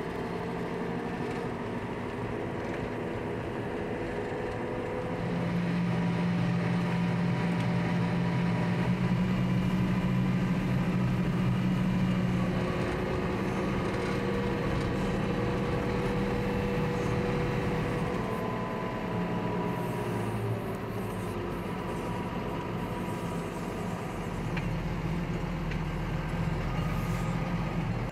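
An engine running steadily, its pitch drifting a little, growing louder about five seconds in.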